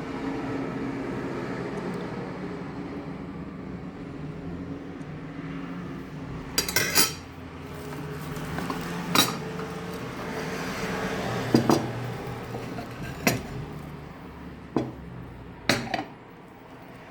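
A metal utensil knocking and clinking against a dish, about six separate sharp knocks a second or two apart, over a steady low hum.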